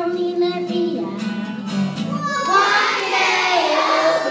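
A choir of young children singing together, the voices swelling louder about halfway through.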